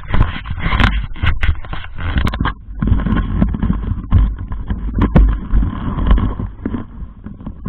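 Handling noise on an action camera's microphone as the camera is picked up and swung about: rubbing and wind buffeting with a low rumble, broken by many sharp knocks.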